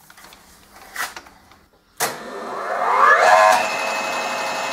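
Lathe's electric motor switched on about two seconds in after a click, driving the spindle through a V-belt on a single-groove pulley. It spins up with a rising whine and settles to a steady running hum after about a second and a half, showing it has enough power to start on the smaller replacement pulley.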